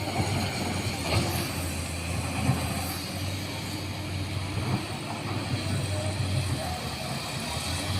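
Excavator's diesel engine running steadily under load, with a few short knocks as it works.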